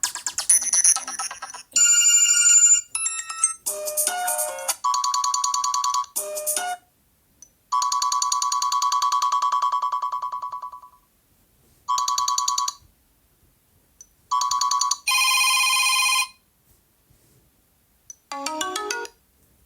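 Built-in tones of a Sony Xperia phone previewed one after another: a string of short melodic clips, each a different tone, cut off after a second or two as the next is selected, with brief gaps between them.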